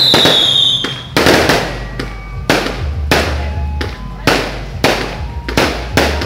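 Fireworks going off in a rapid series of sharp bangs, about two a second. A whistling rocket's high whistle falls slowly in pitch and ends about a second in.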